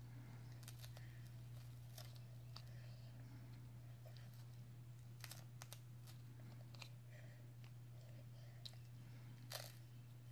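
Faint crunching and small mouth clicks of a baby biting and gumming a soft, quick-dissolving teething wafer, a few scattered clicks with the loudest near the end, over a steady low hum.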